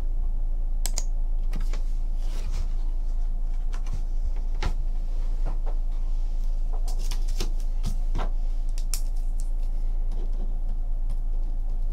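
Scattered light clicks and taps from hands handling things on a tabletop, irregular and a few seconds apart, over a steady low electrical hum.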